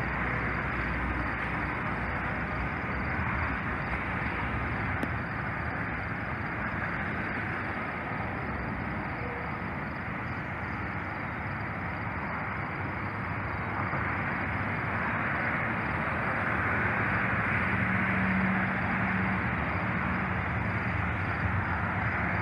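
Steady outdoor rumble of road traffic with distant Amtrak diesel locomotives approaching, the sound growing slowly louder over the last several seconds, with a brief low engine drone about eighteen seconds in.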